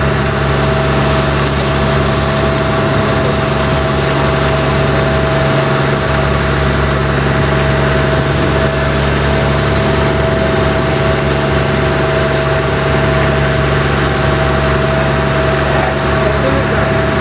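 Fishing boat engine running steadily at a constant speed: an even, unchanging drone with a steady hum.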